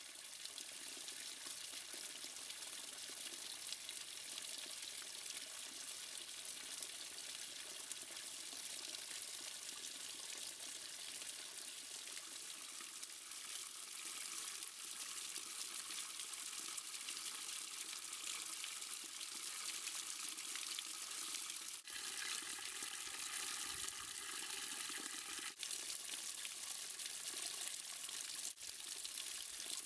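Rainwater runoff in a ravine, small streams pouring and splashing over rock in a steady hiss of falling water. The sound breaks off abruptly for an instant a few times in the last third, where the shot changes.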